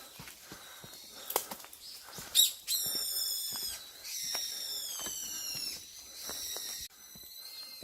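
Footsteps on a forest path, with a bird calling loudly overhead: after a sharp burst a couple of seconds in, three long, high, strained calls with a slight fall in pitch, the last cut off suddenly.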